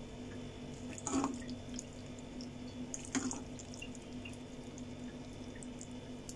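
Silicone spatula working thick, creamy pasta in a frying pan, with two short wet squelches about a second in and about three seconds in, and small faint ticks between, over a steady low hum.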